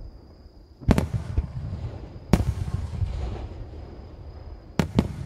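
Aerial firework shells bursting: a sharp boom about a second in, another about a second and a half later, and two in quick succession near the end, each followed by a rolling echo.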